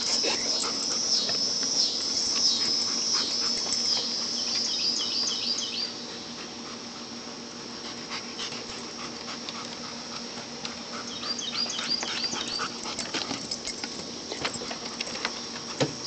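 Two German Shepherds, a young dog and a puppy, playing: runs of short, high-pitched whines and yips, with scattered clicks and scuffles of paws on a wooden deck.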